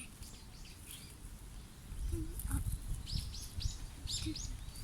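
A small wild bird calling, a quick run of short high arching chirps in the second half, over a low rumbling noise.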